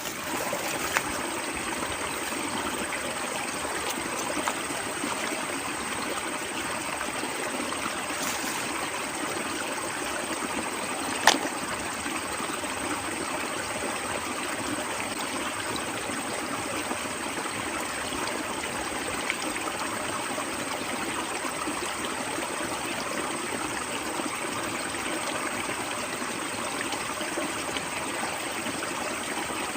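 Steady flowing water of a small stream or trickle, with a thin high tone running over it and one sharp click about 11 seconds in.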